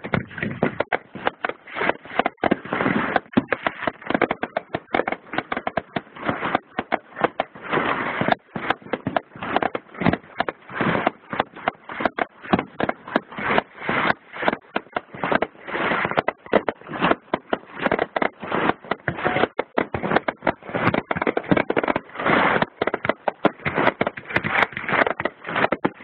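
Fireworks display going off in a dense, unbroken barrage of sharp cracks and bangs, several each second.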